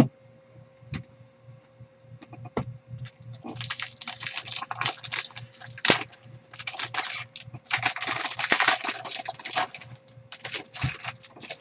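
Foil wrapper of a Topps Chrome jumbo card pack being torn open and crinkled by hand: a few small clicks, then, from about three seconds in, long runs of crackling rustle. A faint steady hum underneath.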